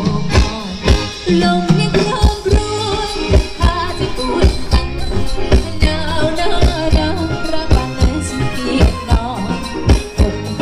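Amplified Thai ramwong band music with a steady drum beat, a singing voice and shaker or tambourine-like percussion.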